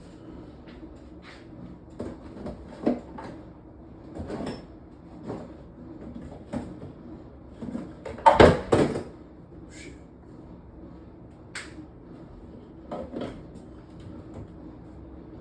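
Kitchen handling noise: scattered knocks and clatters of cupboards, containers and utensils being moved while cooking, with a louder double knock about eight seconds in, over a steady low hum.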